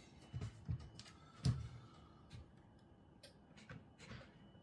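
Faint, scattered clicks and light metallic knocks of a hand wrench working on a chainsaw's flywheel nut, one sharper knock about a second and a half in. The nut does not come loose by hand.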